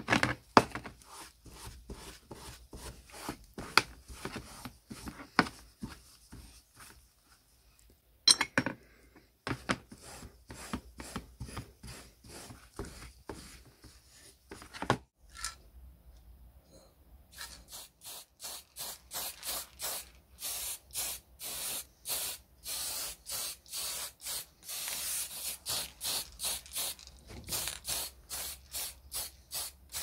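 Steel wool scrubbing cast-iron door closer parts in quick strokes, with a couple of louder knocks. After a short pause about halfway, an aerosol can of acrylic spray paint is shaken in an even rhythm of about three shakes a second.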